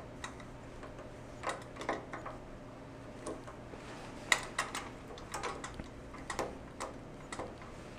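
Light, irregular metal clicks and taps of a wrench working the small nut that holds the condenser at a Kohler engine's breaker points, the sharpest about four seconds in.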